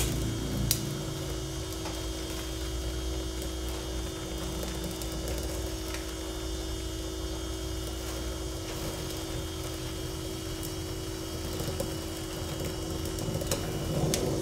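Oxy-acetylene welding torch with a neutral flame burning steadily while a bead is run on 16-gauge steel with filler rod: an even hiss over a steady hum, with a few faint ticks.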